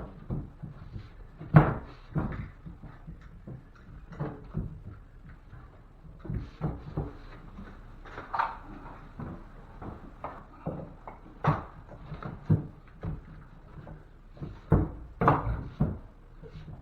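Irregular knocks and thuds of drywall and hand tools being handled while a drywall patch piece is fitted. The sharpest knock comes about one and a half seconds in, with a cluster of heavier knocks near the end.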